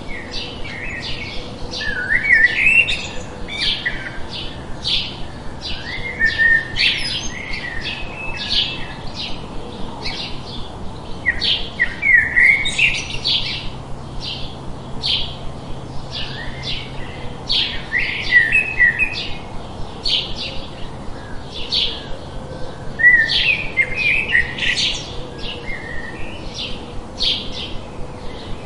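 Small forest birds chirping: a rapid run of short, high chirps, several a second, with a few lower warbled phrases mixed in, over a steady background hiss.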